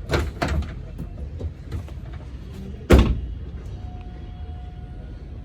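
A car door shutting with one heavy thud about three seconds in, after a couple of lighter clicks, with a faint steady tone near the end.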